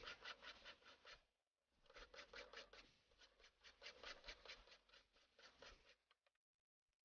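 Flat hand file rasping on a piece of cow bone in quick, even strokes, faint. It pauses briefly about a second and a half in, then runs on until it stops about six seconds in.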